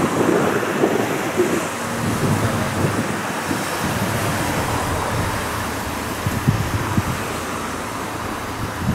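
Road traffic noise with wind buffeting the microphone, as a light box truck drives past close by.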